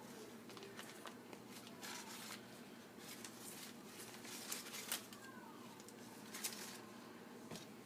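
A thin liner sheet crinkling and rustling as it is peeled off a loaf of handmade soap, in short irregular crackles. The sharpest crackles come about four and a half seconds in and again near six and a half seconds.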